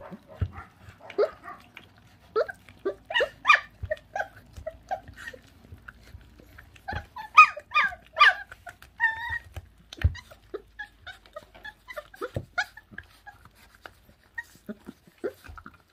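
Young puppies tearing and chewing raw meat, with many small wet clicks of chewing throughout. Short high whines break in twice, about three seconds in and again, louder, about seven to nine seconds in.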